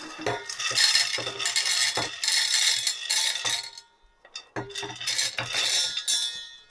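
Cracked, dried acorn pieces poured from a ceramic bowl into the metal hopper of a hand-cranked grain grinder, clattering and rattling against the metal, in two pours with a short pause about four seconds in.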